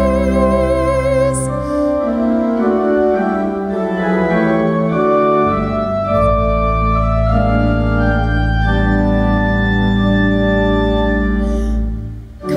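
Organ playing sustained chords over a deep, held bass. In the first second or so a singer's held note with vibrato fades out.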